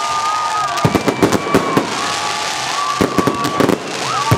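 Fireworks display: quick clusters of sharp bangs about a second in, around three seconds in and again near the end. A steady, high whistling tone bends slightly in pitch underneath.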